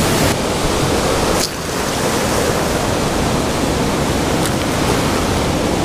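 Ocean surf breaking and washing up a cobble beach: a steady, loud rush of whitewash that dips briefly about a second and a half in.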